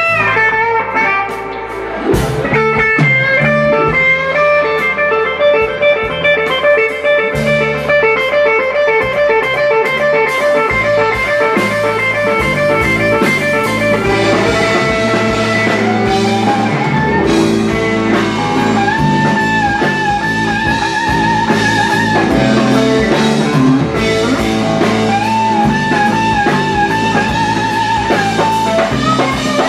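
Live blues band: a Stratocaster-style electric guitar plays a solo over bass guitar and drums. The guitar plays quick repeated notes at first, then long held notes with vibrato from about the middle on.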